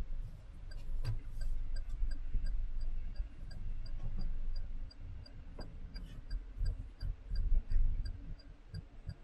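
Car turn-signal indicator ticking steadily, about two ticks a second, inside the cabin over a low engine and road rumble.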